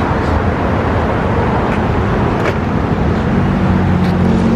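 Steady road-traffic noise, with a low engine hum that grows stronger about three seconds in.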